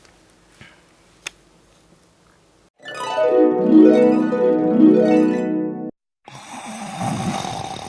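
A run of plucked harp notes begins about three seconds in, rising and falling for about three seconds. After a short gap it gives way to a noisier hissing sound. Before the notes it is quiet apart from a single sharp click.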